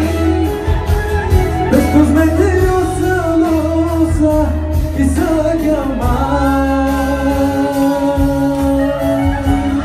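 Live pop song: a male singer sings into a handheld microphone over a loud backing track with a heavy bass beat, holding one long note from about the middle to the end.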